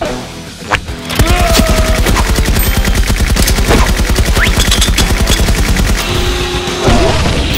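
A long burst of rapid automatic gunfire, starting a little over a second in and easing off about six seconds in, with music underneath.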